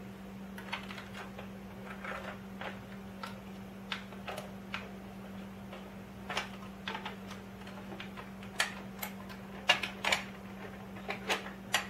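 Small plastic clicks and taps of rotary tool bits and accessories being handled and fitted into their plastic organiser trays and case. The clicks are sparse at first and come more often, and louder, in the second half.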